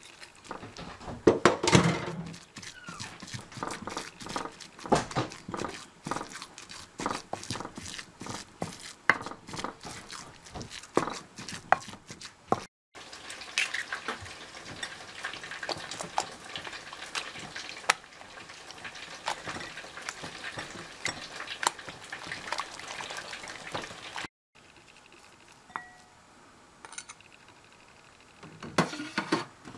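Fish paste being worked in a ceramic suribachi mortar with a wooden pestle: a quick run of knocks and scrapes. After a cut, a steadier wet stirring of the paste, with a few sharp clicks near the end.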